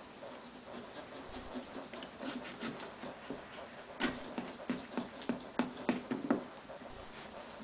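Hand tool scratching and scraping on a pumpkin's rind in short strokes: sparse at first, then a quicker run of sharper strokes, about four a second, from about four seconds in.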